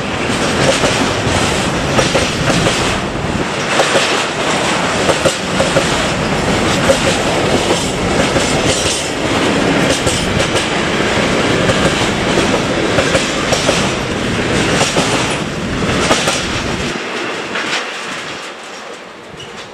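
Intermodal freight train rolling past: wagons loaded with semi-trailers and containers rumble, their wheels clacking over the rail joints again and again. The noise falls away over the last few seconds as the end of the train passes.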